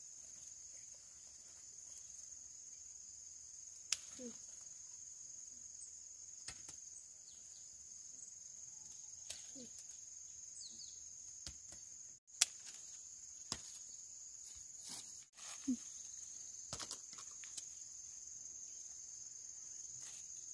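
A steady, high-pitched insect chorus that runs unbroken, with scattered sharp clicks and snaps over it.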